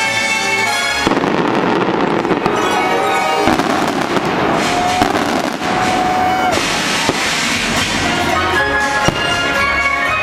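Fireworks bursting and crackling over the show's music. A dense crackling barrage fills the middle, cut through by sharp bangs, and the music comes through clearly again near the end.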